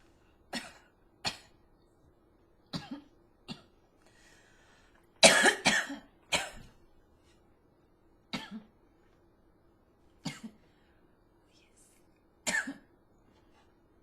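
A person coughing in short, harsh coughs spaced a second or two apart, with a louder fit of several coughs in quick succession about five seconds in.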